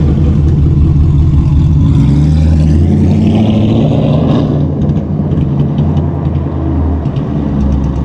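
Chevrolet C7 Corvette's LT1 V8, fitted with long-tube headers and no catalytic converters, running loud as the car pulls away. It revs up about two seconds in, then settles and gets a little quieter as the car moves off. The engine is running untuned with a suspected misfire.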